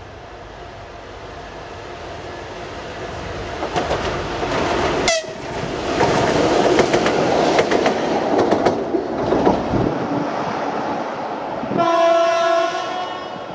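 TEP70BS diesel passenger locomotive running light past, its V16 diesel engine and wheels growing louder as it approaches, with rapid wheel clicks over rail joints as it passes close by. About twelve seconds in, a locomotive horn sounds one steady note for about a second and a half.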